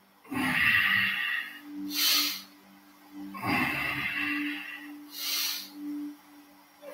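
Heavy rhythmic breathing during an exercise: two long exhales, each followed by a short sharp hissing intake of breath, about three seconds per cycle, over faint background music holding a steady low tone.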